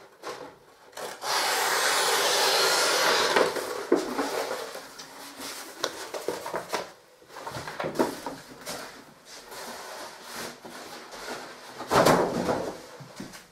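Scissors cutting lining paper along a fold: a loud steady hiss starting about a second in and lasting about two seconds. Then the paper rustles and crackles as it is rolled and laid flat on the bench, with a louder sweep of paper near the end.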